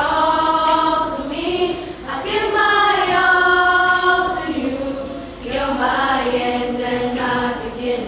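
A group of children singing together, holding long notes in three phrases, with short breaks about two seconds in and about five and a half seconds in.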